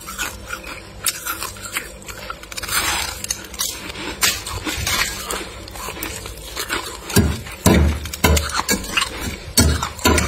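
Metal scraper blade scraping packed freezer frost, a run of crackly scrapes. From about seven seconds in the strokes turn heavier, with a low thump roughly twice a second.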